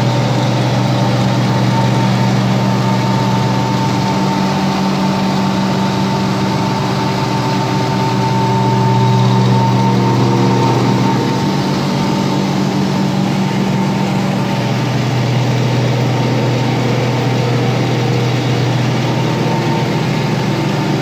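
Micronizer (fine-grinding mill) and its centrifugal blower running steadily: an even machine drone with a constant high whine over a low hum, swelling slightly in loudness about halfway through.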